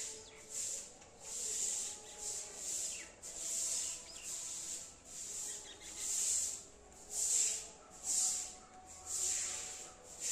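Rubbing and scraping of a hand smoothing damp sand-cement mortar inside a plastic planter mould, in repeated strokes of about one a second.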